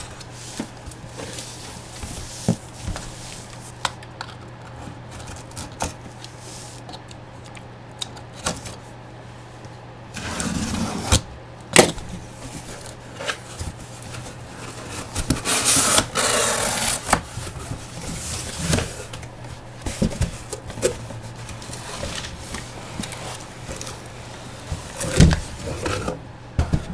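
Cardboard boxes and packaging being handled and opened: scattered clicks and knocks, with two longer stretches of rustling and tearing, one about ten seconds in and another near the middle.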